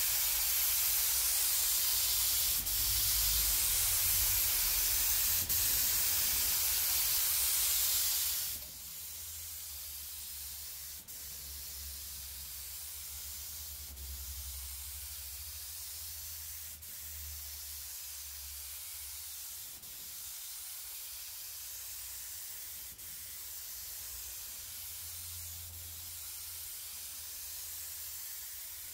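Compressed-air gravity-feed spray gun hissing steadily as it lays clear coat on a car body. The hiss drops noticeably about eight seconds in and carries on at a lower level.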